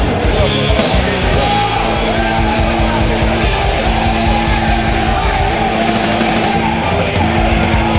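Loud rock music, with held notes that change every second or so.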